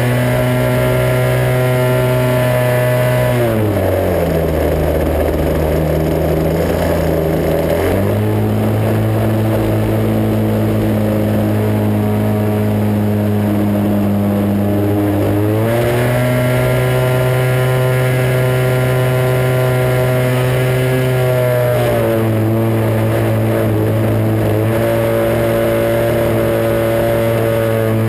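Engine and propeller of an RC Extra 260 model aerobatic plane in flight, heard from a camera mounted on the plane. It runs at high throttle, drops sharply in pitch about three and a half seconds in as the throttle is pulled back, and comes partly up again around eight seconds. It returns to full throttle around sixteen seconds, with a small dip and partial recovery in the last few seconds.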